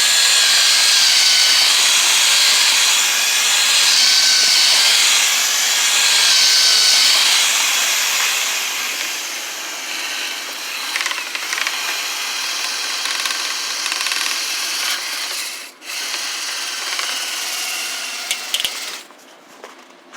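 Power drill spinning a dryer-vent cleaning brush on extension rods inside the vent line, clearing packed lint; the motor whine wavers in pitch. It runs loudest for the first several seconds, then eases, cuts out briefly about three-quarters through, and stops just before the end.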